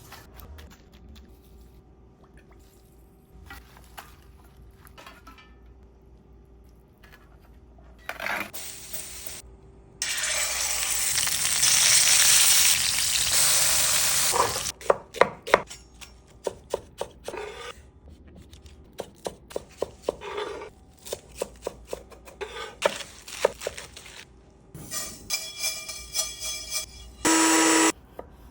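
Kitchen cooking sounds: scattered knife and utensil knocks, then steak sizzling loudly in a hot pan for about four seconds near the middle. This is followed by quick rapid chopping on a cutting board and a brief steady tone near the end.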